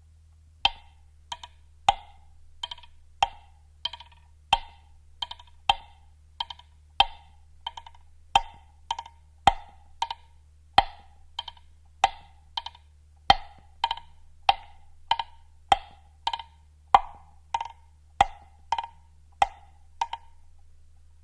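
Woodblock struck in a steady rhythm of about one and a half knocks a second, some strokes doubled into quick pairs, stopping about a second before the end.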